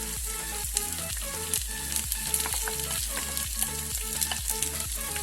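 Chopped onions sizzling as they fry in hot oil in a kadai with mustard seeds and garlic, with sharp crackles throughout. Background music with a regular beat plays underneath.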